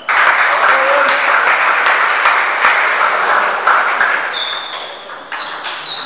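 Spectators applauding in a hall, starting suddenly and dying away after about four seconds. A few sharp pings of a table tennis ball follow near the end.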